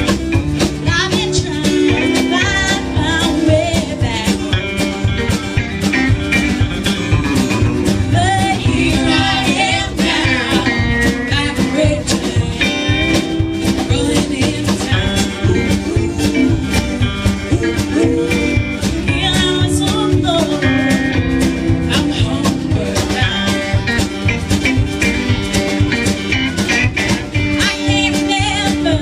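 A live band playing a song: a woman sings lead over acoustic guitar, upright bass, electric guitar and drums, with no break.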